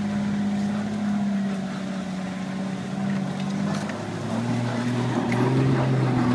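Off-road vehicle's engine pulling under load while climbing over a dirt mound, heard from inside the cab; about four seconds in the revs rise and it gets louder.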